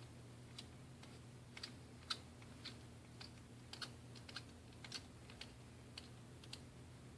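Faint, irregular light clicks and taps from handling a smartphone and small repair tools during reassembly, a dozen or so spaced unevenly, over a steady low electrical hum.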